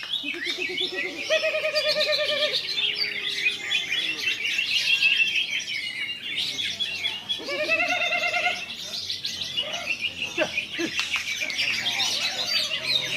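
Cucak hijau (greater green leafbird) singing a continuous, rapid song of chirps and trills, with lower warbling phrases near the start and again about halfway through.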